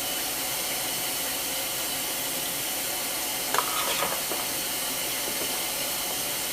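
Steady hiss, with a brief faint sound about three and a half seconds in.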